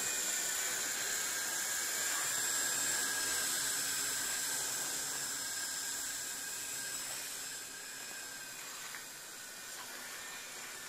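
Helicopter flying overhead: a steady high-pitched whine that gets a little quieter over the last few seconds as it moves off.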